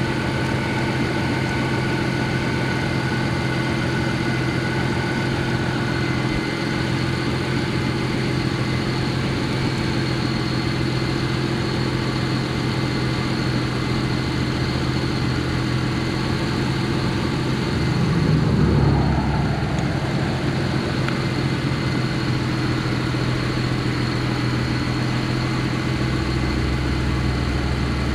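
Car engine idling steadily while it warms up after being restarted from a roadside stall. A brief louder swell in the low end comes about two-thirds of the way through.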